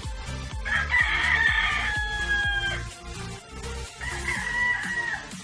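A rooster crowing twice, a long crow about a second in and a shorter one near the end, over background music with a steady beat.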